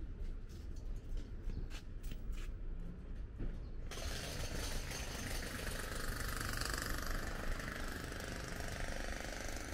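City street traffic noise with engine rumble and scattered clicks, changing abruptly about four seconds in to a steadier, brighter hiss.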